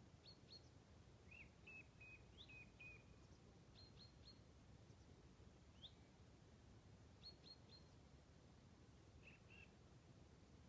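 Faint birdsong: scattered short, high chirps in twos and threes, a quick run of five or six notes, and a few single rising notes, over a steady low rumble of background noise.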